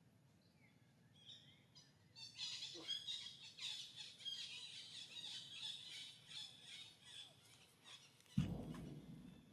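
Newborn macaque giving a rapid run of short, high-pitched squeaks and squeals while an adult female presses close over it. Near the end there is one loud, low thump.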